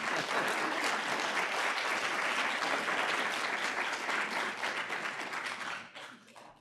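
Small audience applauding steadily, dying away near the end.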